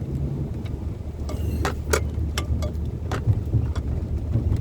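Steady low rumble of a moving car heard from inside the cabin, with a few sharp clicks scattered through it.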